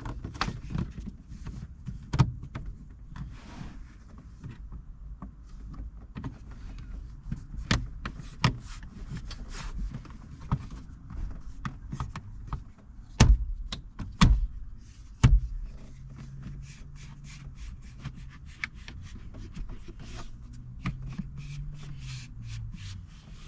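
Plastic steering column trim panel being handled and fitted: scattered clicks, taps and scrapes, with three loud knocks about a second apart midway. A low steady hum runs under the second half, with quick clicking near the end.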